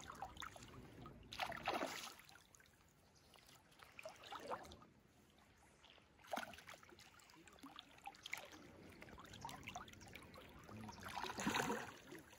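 Several irregular water splashes and sloshing from a hooked coho salmon thrashing at the surface beside a waist-deep wading angler, the loudest splash near the end.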